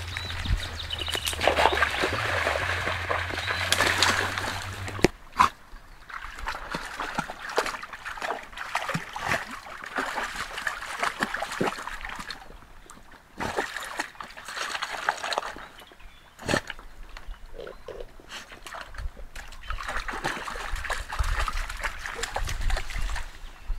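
A black Labrador–Belgian Shepherd mix dog wading and splashing in a shallow stream, the water sloshing in irregular bursts. The splashing is busiest in the first few seconds and comes in shorter spurts with quieter gaps after that.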